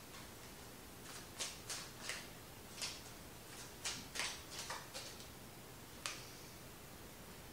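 Tarot cards being handled: about a dozen faint, light clicks at irregular intervals as cards are drawn, flipped and set down.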